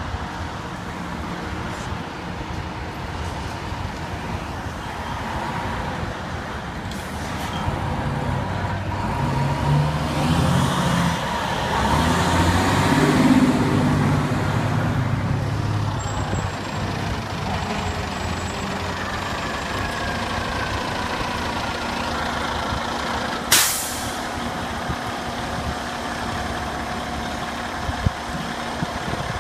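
Diesel fire trucks pulling out of a firehouse: a fire engine's engine grows louder as it drives close past, about halfway through, then fades. About three-quarters of the way through a short sharp air-brake hiss sounds, and a tower ladder truck's engine runs near the end.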